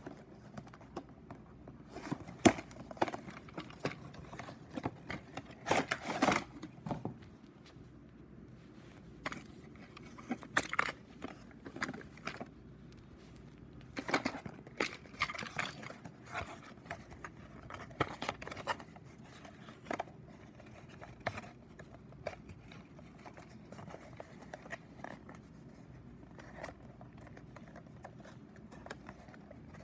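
A cardboard and clear-plastic toy box being handled and pried open by hand: irregular rustling, crinkling, scraping and clicks, some louder than others.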